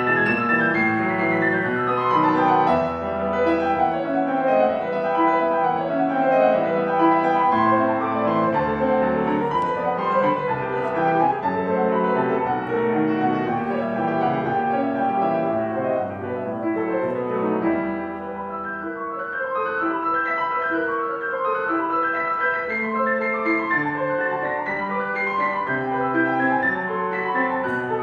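Piano playing a classical piece, a continuous flow of notes across a wide range.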